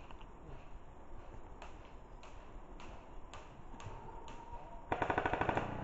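Airsoft guns firing: separate single shots about every half second, then near the end a rapid full-auto burst of under a second, the loudest sound here.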